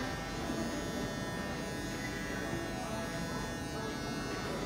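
Electric hair clippers buzzing steadily as they cut hair on top of the head.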